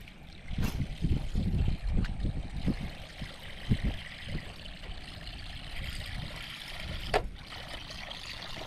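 Water lapping and trickling, with uneven low bumping in the first few seconds and three sharp clicks.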